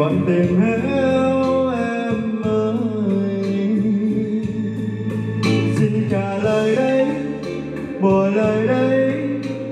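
A slow sung ballad with guitar and bass accompaniment playing through a karaoke sound system's mixer and amplified speakers.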